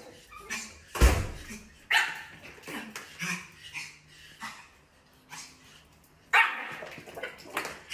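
Small white dog barking: a string of short, sharp barks with pauses between them, the loudest about a second in.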